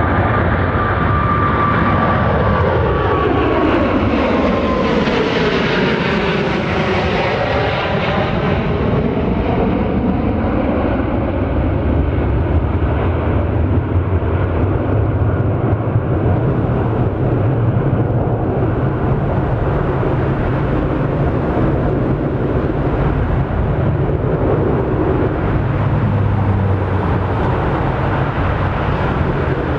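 Jet airliner passing low overhead. Its high engine whine sinks slowly in pitch, and a hollow sweeping sound peaks about eight seconds in as it goes by. A steady low engine rumble follows.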